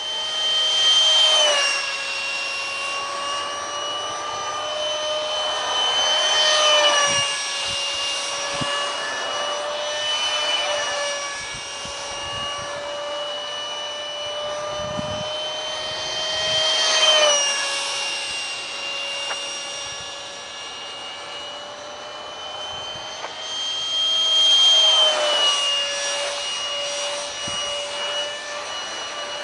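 Detrum 70mm electric ducted fan of a foam bat-wing RC jet whining steadily in flight. It swells louder four times as the jet makes close passes, and its pitch steps up and down a few times.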